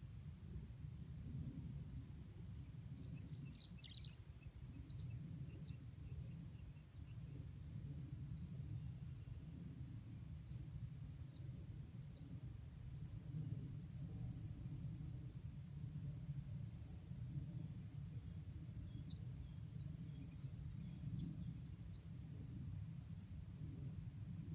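Short high chirps from a small animal, repeated evenly about twice a second, over a steady low rumble.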